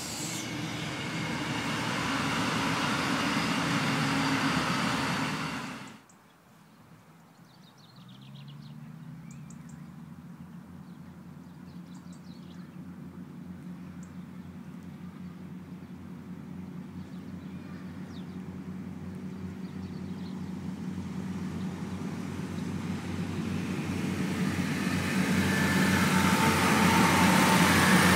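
Irish Rail Class 29000 diesel multiple unit running past on the line, cut off abruptly about six seconds in. Then a second DMU's steady engine drone grows louder as it approaches.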